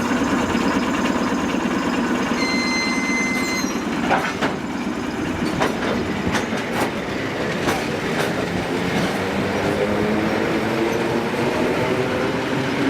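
A train running by: a steady rumble with clicks, a brief high squeal from the wheels a couple of seconds in, and a motor tone that slowly rises in pitch through the second half.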